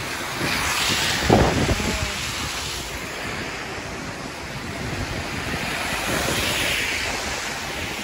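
Cars passing on a snow-covered road, their tyres hissing and swelling twice, about a second in and again about six seconds in, with wind rumbling on the microphone.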